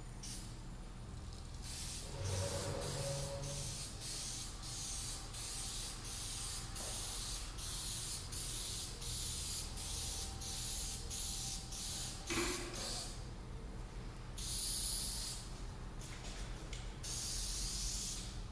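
Aerosol can of 3M Super 77 spray adhesive hissing in quick, even bursts, about two to three a second, then two longer sprays of about a second each near the end. The adhesive is being sprayed over a poker table's playing surface before the cloth goes on.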